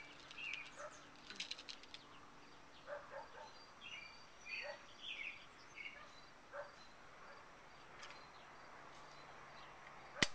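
Faint small bird chirps and light clicks while .177 pellets are handled and loaded into an Airforce Talon SS air rifle, ending with one sharp metallic click at the breech near the end.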